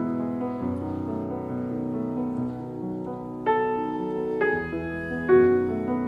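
Slow piano music with long sustained notes. A new chord is struck about three and a half seconds in and again near the end.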